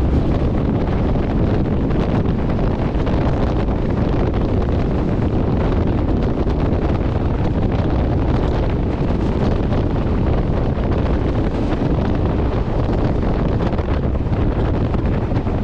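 Strong wind buffeting the microphone: a loud, steady low rumbling noise with no clear pitch.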